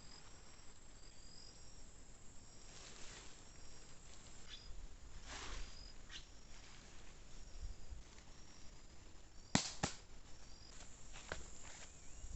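Outdoor insect chorus with a steady high trill and short repeated high chirps, joined by a few soft swishes. Two sharp knocks come close together near the end and are the loudest sounds.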